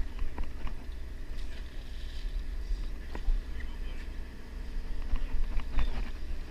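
Wind buffeting the microphone, a low, fluctuating rumble, with scattered light clicks and taps from the fly rod and reel being handled.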